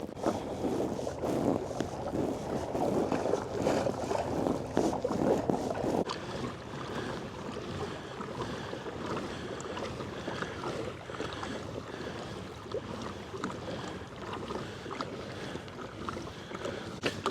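Water swishing and lapping around a moving kayak's hull, louder for the first six seconds, then dropping to a steadier, softer wash.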